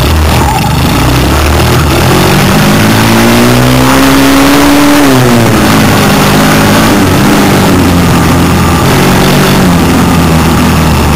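Small off-road vehicle engine heard on board while riding a dirt trail: the revs climb for a few seconds, drop sharply about five seconds in, then hold roughly steady. Loud, with a rough haze of noise over the engine.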